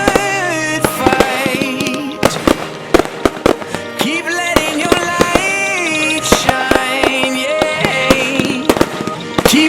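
Music with a melody line, and over it many irregular sharp bangs and crackles of exploding fireworks.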